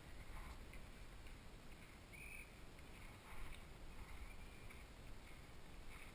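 Faint low rumble of a mountain bike's tyres on a gravel track, mixed with wind on a helmet-mounted camera's microphone, with a few light clicks and a brief high note about two seconds in.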